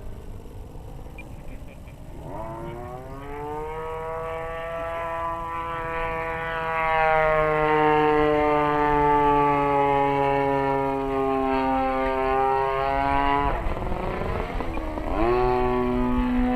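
Desert Aircraft DA-35 single-cylinder two-stroke gas engine and propeller on an RC aerobatic plane in flight: the engine throttles up sharply about two seconds in, runs high with its pitch slowly sagging, is chopped abruptly just past thirteen seconds, then revs back up near the end.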